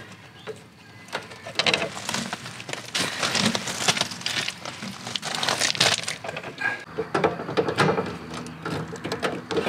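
Irregular rustling, scraping and clicking handling noises from work inside an open electrical breaker panel, with stiff wire being bent and handled, densest in the first half.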